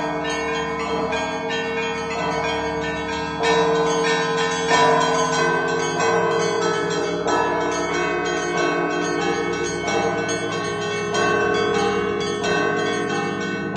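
Russian Orthodox monastery bells rung in an improvised peal: quick chiming of small high bells over strikes of larger, deeper bells, the tones overlapping and ringing on. A few heavier strokes come about a third of the way in.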